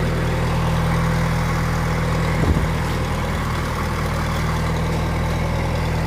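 A vehicle engine idling steadily, with one brief knock about two and a half seconds in.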